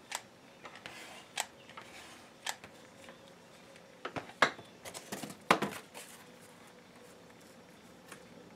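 Cardboard and a hot glue gun being handled on a wooden workbench: a few sharp clicks while the glue is laid, then a cluster of knocks and scrapes about four to six seconds in as the glue gun is set down and a second sheet of cardboard is laid on the glued one.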